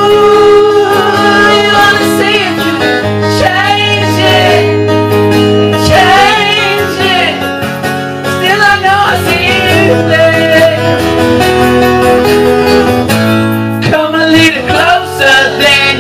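Live acoustic band music: strummed acoustic guitar chords held under a male lead singer's wavering, gliding vocal line with no clear words.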